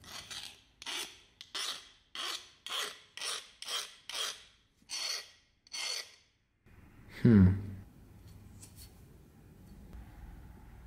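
A thin round steel rod scraped in short strokes across the rusted steel blade of a Kalashnikov bayonet, about ten scrapes at nearly two a second, stopping after about six seconds. About seven seconds in comes a single deep thud with a falling tone, the loudest sound.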